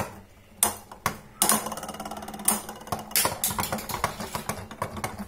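Two Beyblade Burst spinning tops spinning in a red plastic tub, clacking together and against the plastic wall in a string of sharp, irregular clicks over a steady low hum.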